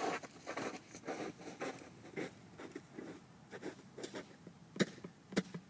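Footsteps in snow: a run of irregular crunching steps that grow fainter as the walker moves away, then a few sharp clicks near the end.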